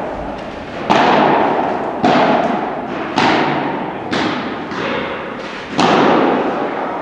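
Padel rally: the ball is hit back and forth about once a second, five or so sharp pops. Each pop trails off in the long echo of a large indoor hall.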